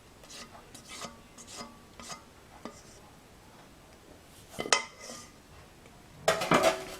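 Kitchen utensils scraping and rubbing against a bowl or pan, with a sharp knock about two-thirds of the way in and a louder clatter of dishes near the end.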